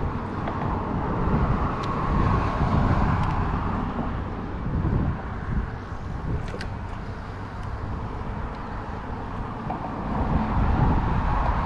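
Outdoor background noise: a low, uneven wind rumble on the microphone, with road traffic on the bridge swelling and fading near the start and again near the end.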